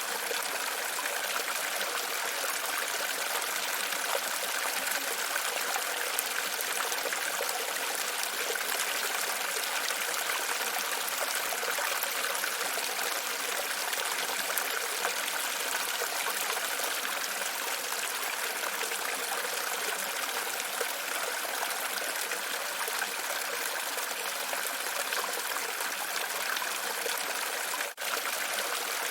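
Running water, a steady trickling and splashing flow, with a brief break near the end.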